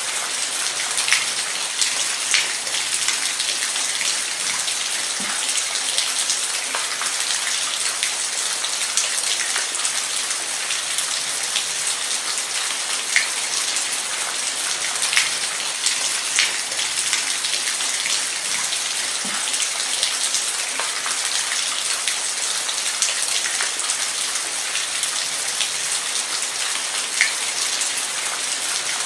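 Steady rain falling, a dense hiss with scattered louder drops ticking through it.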